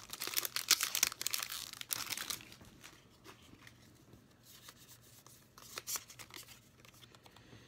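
Foil wrapper of a Pokémon card booster pack crinkling and tearing open, dense and crackly for the first two seconds or so, then dying down to a few faint rustles.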